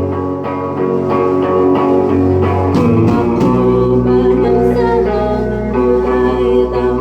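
Live band music, led by guitars over a bass guitar, with regular strummed strokes. About three seconds in, the bass moves to a new, lower note.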